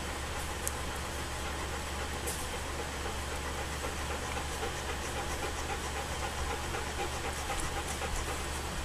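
Alaskan Malamute mother dog panting, over a steady low hum and hiss.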